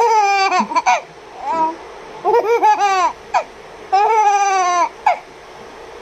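Baby laughing and squealing: about five high-pitched bursts, most falling in pitch, with short pauses between.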